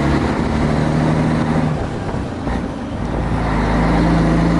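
Scania 143 truck's V8 diesel engine running under way. Its steady note dips about two seconds in, then builds again, slightly higher and louder.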